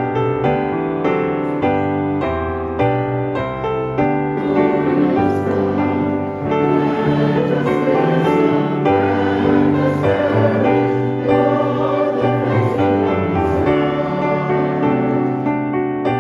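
Piano playing on its own, then a choir comes in singing with the piano accompaniment about four seconds in.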